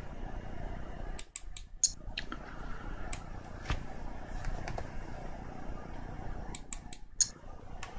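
Computer mouse clicking: a quick run of clicks about a second in, a few single clicks, then another run near the end, over a steady low background hum.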